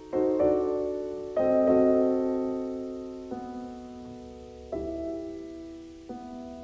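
Background piano music: slow chords struck about every one and a half seconds, each left to ring and fade.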